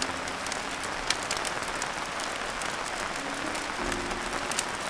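Steady downpour of heavy rain, with sharp crackles and pops from a freshly lit wood fire of kindling and split firewood.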